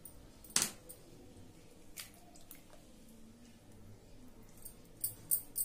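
A raw egg being broken open over a steel bowl of raw chicken pieces: a sharp crack of shell about half a second in, then the white and yolk dropping wetly onto the chicken, with a few light clicks of shell near the end.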